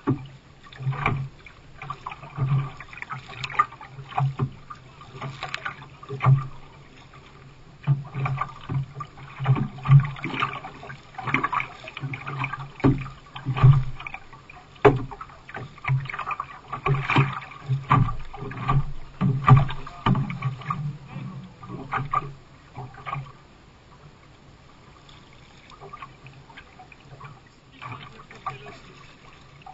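Canoe being paddled on the sea: paddle blades dipping and splashing and water knocking against the hull in irregular strokes, about one or two a second. The strokes thin out and grow quieter for the last several seconds.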